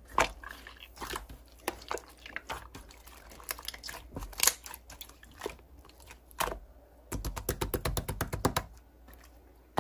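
Soft pink slime being stretched and pressed by hand, giving scattered sticky clicks and pops. A little past the middle comes a quick run of rapid crackling pops lasting about a second and a half.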